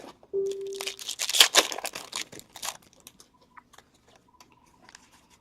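A trading-card pack wrapper is torn open and crinkled in the hands, loudest in the first couple of seconds. It is followed by sparse, faint clicks as the cards are handled. A brief low hum sounds right at the start.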